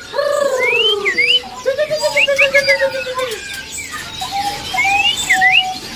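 Several caged songbirds singing and calling at once: quick rising and falling whistled notes and chirps over a few longer, lower whistles.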